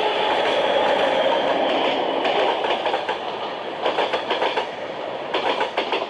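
Passenger express train passing close by: the class 754 diesel locomotive's running fades into the rushing of the coaches. Over the last few seconds the wheel sets clatter over rail joints in quick clusters as the last coaches go by.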